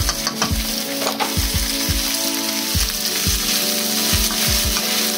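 Diced smoked tofu, peppers and onions sizzling in a hot oiled frying pan, stirred with a wooden spatula, with a steady hiss and irregular soft low knocks from the stirring.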